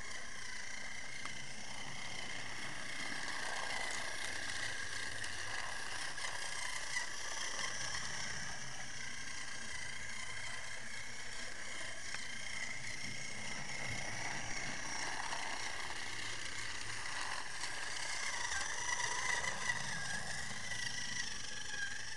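Battery-powered TrackMaster Harvey toy train engine running along plastic track pulling a coach: a steady small-motor whir with wheel rattle, and a few light clicks near the end.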